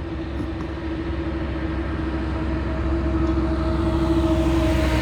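Heavy truck loaded with potatoes approaching along the road, its engine and tyre rumble with a steady hum growing gradually louder.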